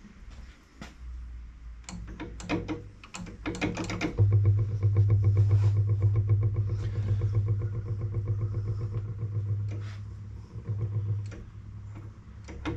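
Hercules ZXB four-cylinder gasoline engine of a military Hobart generator starting for the first time in over 30 years: a couple of seconds of irregular coughs and pops, then it catches and runs steadily for about eight seconds, stumbles briefly and dies away near the end.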